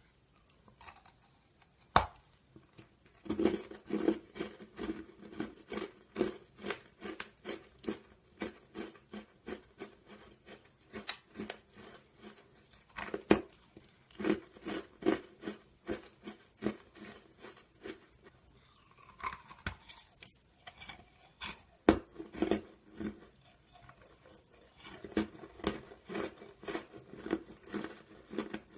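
A person chewing and crunching pieces of foam concrete block, with steady crisp chewing strokes about two to three a second. A few sharp, louder cracks come as fresh pieces are bitten off, about two, thirteen and twenty-two seconds in.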